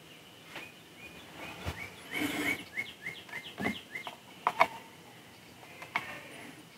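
Light clicks and taps of model-kit parts being handled and pressed into place on the sculpture, the sharpest click a little past halfway, with a quick run of short high squeaks or chirps about two to four seconds in.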